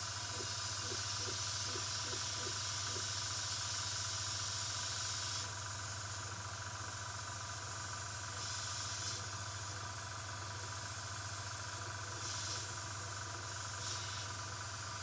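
Compressed air hissing steadily out of a diode laser cutter's air-assist nozzle, over a low steady hum. The hiss eases slightly about five seconds in, with a few brief louder puffs later.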